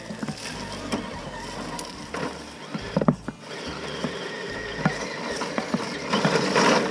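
Radio-controlled rock crawler's electric motor and gears running with a faint high whine as it climbs, over scattered clicks and knocks of the truck on the ground. A sharp knock comes about three seconds in, and there is a louder scrabbling stretch near the end.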